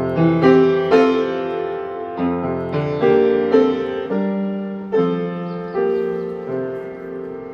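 Piano played slowly: notes and chords struck every half second to a second, each left to ring and fade.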